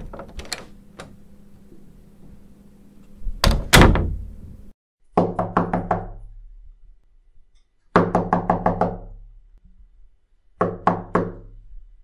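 A door opening and closing: latch clicks in the first second, then two heavy thuds about three and a half seconds in as it shuts. From about five seconds in comes knocking on a wooden door, three separate rounds of about five quick raps each.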